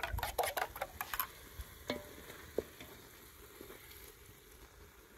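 Beaten eggs poured into a hot aluminium saucepan of cooked vegetables, sizzling softly, with a quick run of clicks and scrapes from the spoon against the metal bowl and pot in the first second or so and a couple of single clicks after.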